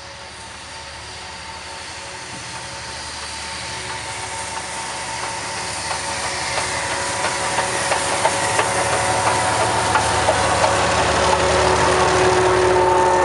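Steam-hauled train behind a class 19D steam locomotive approaching and passing, growing steadily louder throughout. From about halfway in, wheels click sharply over rail joints. Steady engine tones come up near the end as the diesel locomotive coupled behind the steam engine draws level.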